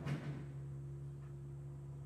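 Sharp crack of debris breaking as a hydraulic excavator demolishes a wooden house, right at the start and dying away within about half a second, over the excavator's steady low engine hum.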